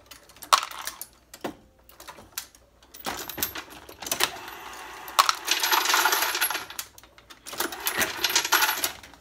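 9mm bullets clinking and rattling against each other as a hand scoops them from a plastic bin beside a progressive reloading press. There are scattered clicks in the first seconds, and a dense clatter from about four seconds in and again near the end.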